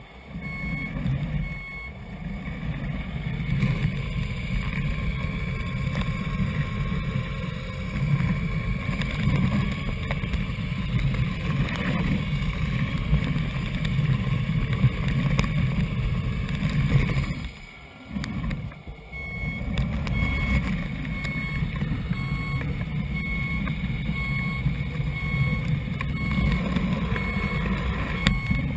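RC scale tractor truck's sound module playing a diesel engine rumble, with its reversing beeper going at about one beep a second. The engine sound cuts out for about two seconds about two-thirds through, then starts again.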